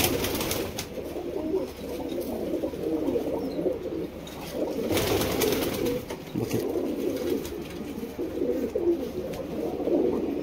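Domestic pigeons cooing continuously, several overlapping low coos, with two short bursts of rustling, one at the start and one about five seconds in.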